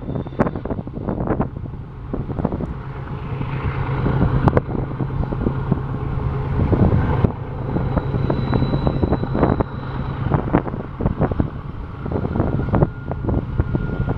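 Intermodal freight cars carrying highway trailers rolling past: an irregular clatter of wheels and couplers over the rails over a steady low rumble. A thin, high wheel squeal runs for about two seconds midway, and a lower squeal starts near the end.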